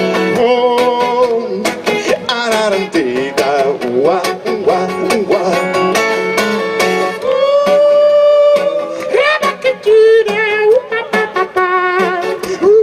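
Live acoustic guitar strummed in a steady rhythm under a voice singing a wordless, wavering melody, with one long held note a little past the middle.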